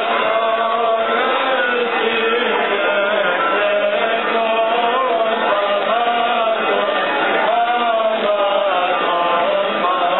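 Greek Orthodox Byzantine chant: slow, bending melodic lines sung over a steady low held drone.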